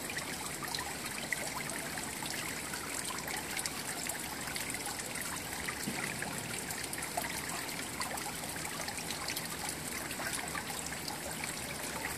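Steady trickle of running water: an even hiss with faint small ticks scattered through it.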